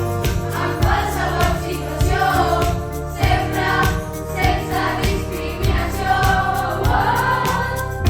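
Music: several voices singing together over a steady bass and beat.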